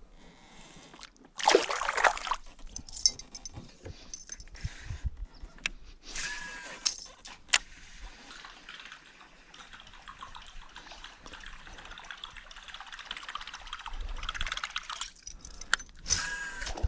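River water trickling and splashing, with a few brief splashing bursts and several sharp clicks.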